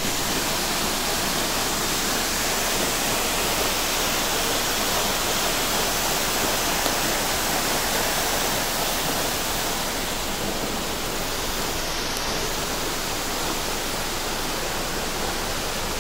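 Steady, even rushing of running water, unbroken throughout.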